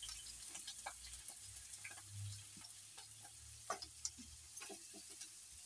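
Chopped onions and green chillies frying faintly in oil in a pan, a soft sizzle with scattered small pops and crackles.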